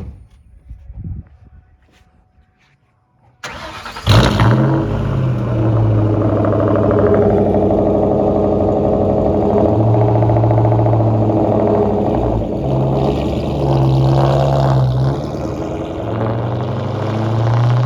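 2004 Ford Mustang Mach 1's 4.6-litre DOHC V8 cranking and firing up about three and a half seconds in, flaring loudly as it catches, then idling steadily with a few slight rises in revs, fresh after an oil change.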